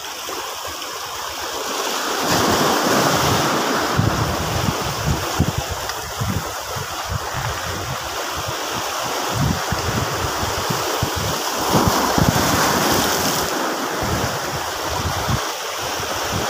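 Small sea waves washing over shoreline rocks, swelling and easing with each wave, with wind buffeting the microphone.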